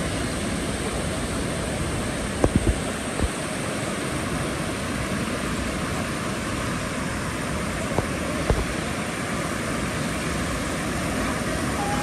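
Steady rush of water pouring over shallow weirs and a small waterfall. A few brief low thumps come about two and a half seconds in and again near eight seconds.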